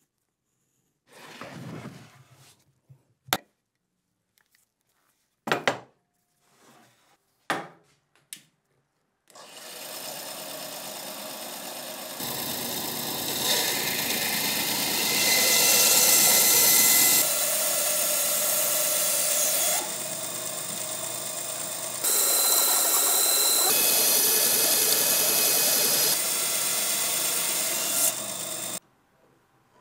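A few short sharp knocks and rustles, then from about nine seconds in a band saw runs and cuts through a wooden block. The cutting goes louder and quieter in steps and stops suddenly near the end.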